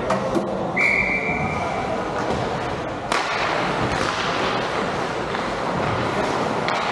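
Ice hockey rink noise with one short, steady whistle blast about a second in, typical of a referee stopping play, and a sharp knock about three seconds in, like a stick or puck striking the boards, over a steady haze of arena noise and voices.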